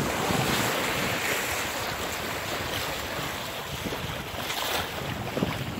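Water rushing and splashing along the bow of a sailboat under sail, mixed with wind on the microphone: a steady hiss that eases a little toward the end.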